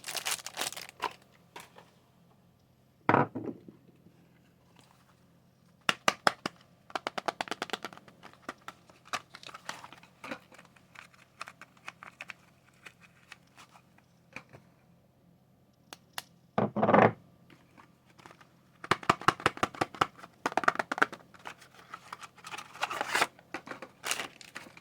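Soap wrapping being crinkled and torn open by hand in irregular bursts of crackling with quiet pauses between. Two louder, fuller bursts come about three seconds in and again past the middle.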